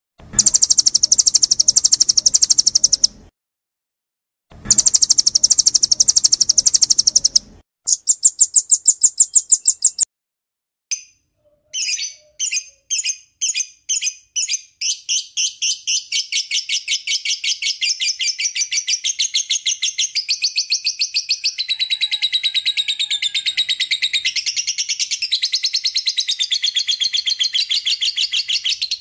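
Spliced recordings of small songbirds' song for training a caged bird: two high, rapid trills of about three seconds each, a shorter fast trill, then a run of chips that speeds up into a long, continuous chattering trill wavering in pitch.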